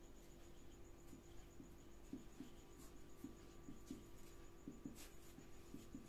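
Marker pen writing on a whiteboard: short faint strokes and scratches of the felt tip, two or three a second, as letters are written.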